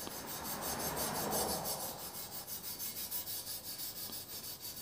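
Copper scouring pad rubbed lightly back and forth over the wet chromed steel tubes of a bicycle frame, a steady rough scratching in quick, even strokes as it scrubs surface rust spots off the chrome.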